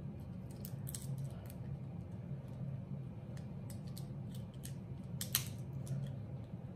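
Crab shell clicking and crackling as meat is picked out of it by hand, with one sharper crack about five seconds in. A steady low hum runs underneath.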